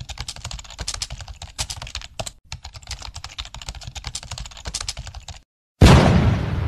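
Rapid computer-keyboard typing clicks, a sound effect for on-screen text being typed out, stopping about five and a half seconds in. Just after, a sudden loud whoosh hits and fades away.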